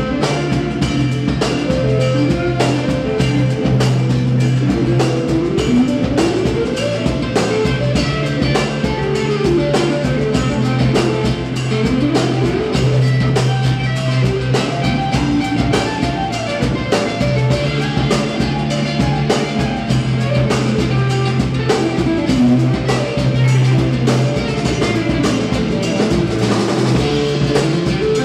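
Live instrumental band music: nylon-string acoustic guitars playing quick runs that rise and fall, over a steady electric bass line and a drum kit.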